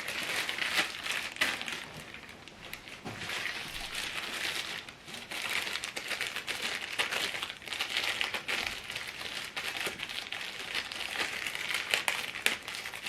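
Plastic packaging crinkling and rustling irregularly as it is handled, with a few light knocks.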